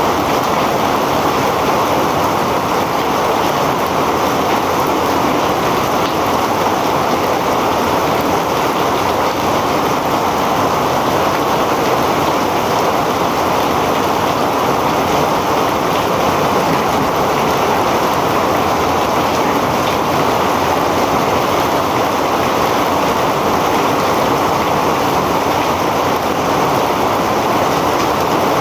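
Heavy rain falling steadily, a dense, even hiss that holds the same level throughout.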